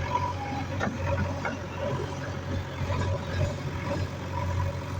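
Heavy diesel engine running steadily, with a couple of short knocks in the first two seconds.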